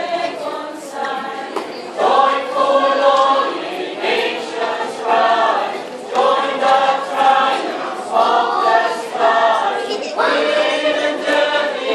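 Mixed choir of male and female voices singing together, in phrases that swell and break about every two seconds.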